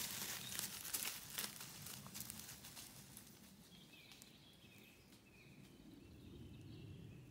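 Footsteps crunching on a gravel forest path for the first two or three seconds, then quieter, with small birds chirping faintly.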